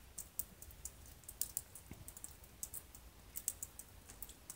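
Faint, scattered small clicks and ticks at irregular intervals.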